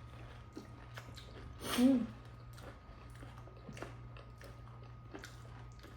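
Close-up mouth sounds of someone eating pani puri: chewing with scattered small crunches and wet clicks, and one louder burst about two seconds in.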